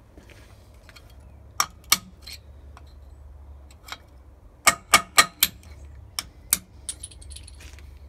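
Hammer striking metal to drive a steel roll pin out of a tractor's automatic lower link hook on the lift arm. About a dozen sharp metallic blows, irregularly spaced, with a quick run of four about five seconds in.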